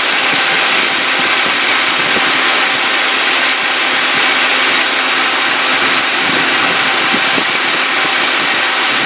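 Car engine idling under the open hood with the electric cooling fan running, a steady, even rushing noise. The fan and AC compressor are staying on now that the system is almost fully charged with R-134a, no longer cycling on and off as they did when the refrigerant was low.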